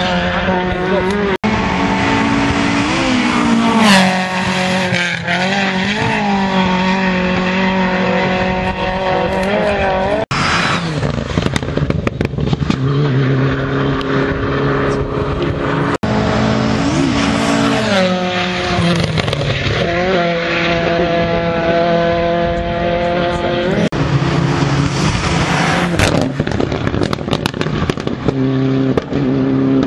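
Rally car engines revving hard on a special stage, their pitch climbing and dropping again and again through gear changes, loudest about four seconds in.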